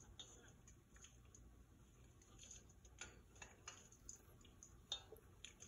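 Faint squelching and light irregular ticks of gloved hands working chicken pieces in a stainless steel bowl, with a sharper tick about five seconds in.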